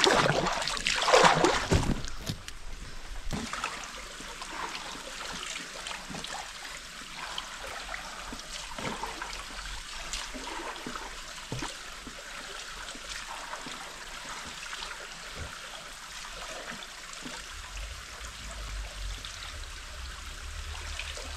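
Water trickling and flowing steadily, as of a stream, with many small splashes and drips. A louder rush of noise comes in the first couple of seconds, and a low rumble joins near the end.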